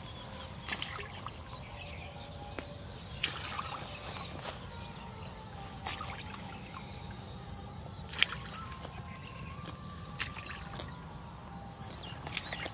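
Small lumps of bait tossed into a canal, landing with short sharp splashes about every two to three seconds, the one past the middle the loudest, over a steady low background noise.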